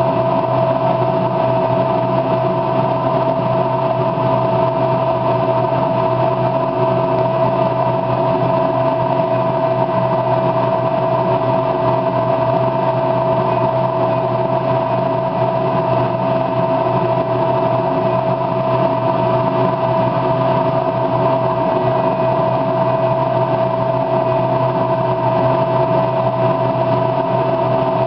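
A steady, unchanging machine hum with one strong held tone, running at the same level throughout.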